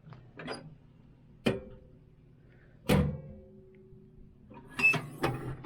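Steel tool cart parts being handled and knocked together: a few sharp metallic clanks. The loudest comes about three seconds in and leaves a ringing tone for over a second, and a quick pair follows near the end.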